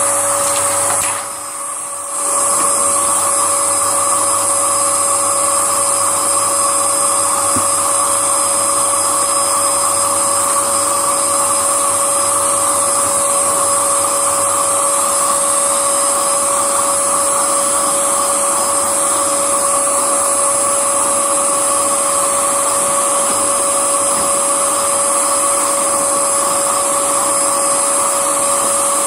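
Upright vacuum cleaner running steadily, its motor giving a steady high whine over the rush of air. It dips briefly about a second in, then runs on at full level.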